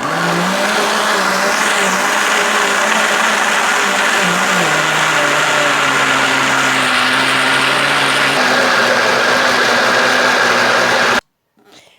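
Electric blender running steadily as it mixes a pie batter of eggs, oil, milk and flour. Its motor pitch drops a little about four and a half seconds in, and it stops abruptly near the end.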